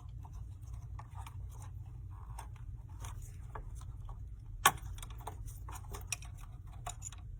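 Small clicks and taps of hands working plastic cable connectors on a desktop computer motherboard, with one sharper click about two-thirds of the way through, over a steady low hum.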